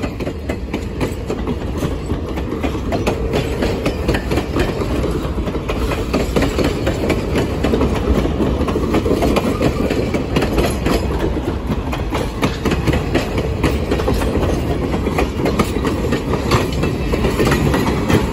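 Great Smoky Mountains Railroad passenger cars rolling past close by, a steady rumble with the steel wheels clicking and clacking over the rail joints. It grows a little louder over the first several seconds.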